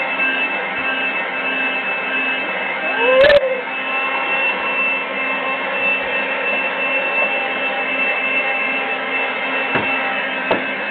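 Household vacuum cleaner running steadily, a noisy hum with a high whine over it. About three seconds in there is a brief knock with a short squeak, and a couple of faint taps near the end.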